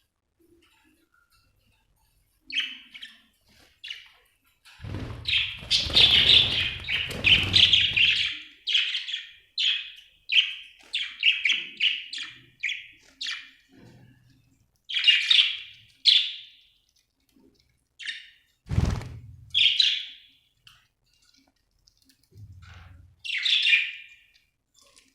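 Budgerigar chirping in short, quick calls, breaking into a dense run of chatter about a fifth of the way in. A single thump sounds about three-quarters of the way through.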